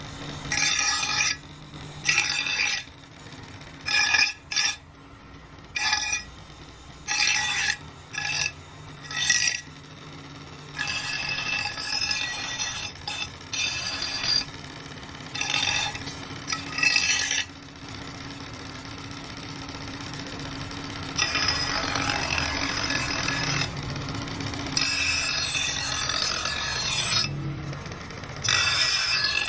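Steel cleaver blade being worked with an abrasive, scraping: short separate strokes for about the first ten seconds, then longer stretches of continuous scraping.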